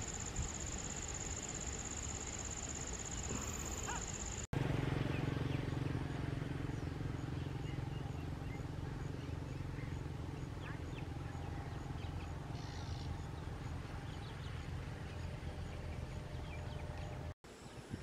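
Outdoor field ambience in spliced segments, broken by brief dropouts. A steady high whine over hiss fills the first few seconds. After that a steady low hum runs under a noise bed, with faint scattered short bird chirps.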